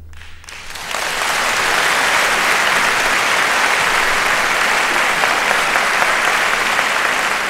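Concert audience applauding, breaking out right after the orchestra stops and building within about a second to full, steady clapping.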